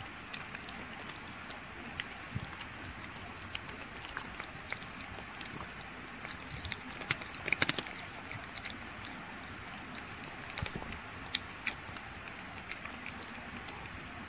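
Kitten lapping melted chocolate ice cream from a bowl: many small wet licking clicks over a steady background hiss, with a brief run of louder clicks about halfway through.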